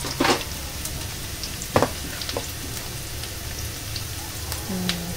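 Sliced shallots sizzling as they deep-fry in oil in a frying pan, with a steady hiss. A few light clicks sound over it, one near the start and two about two seconds in.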